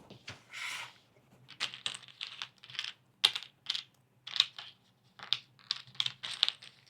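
Thick cardboard jigsaw puzzle pieces being handled, turned over and set down on a table: a quick, irregular run of small clicks and taps, with a short rustle near the start.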